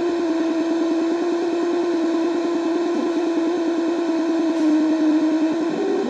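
Old shortwave radio receiving a steady low buzzing tone that pulses rapidly, over a constant hiss of static: an unidentified oscillating signal that may be only radio noise.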